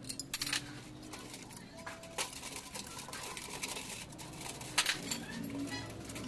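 Sharp metallic knocks and clinks as a steel cylinder liner is handled in a metal pan of oil, a few separate strikes, with a cluster about half a second in and another near five seconds.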